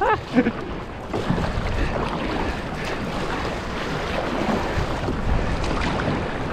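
Ocean surf and water rushing around a kayak riding the waves in toward the beach, with wind buffeting the microphone as a steady deep rumble.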